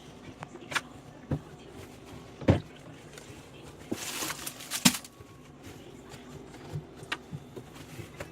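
Scattered knocks and clicks of items being handled while clearing out a fridge, with a louder knock about two and a half seconds in and a brief rustle around four seconds ending in another knock.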